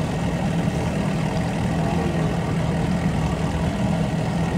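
Outboard boat motor idling steadily with a low, even hum.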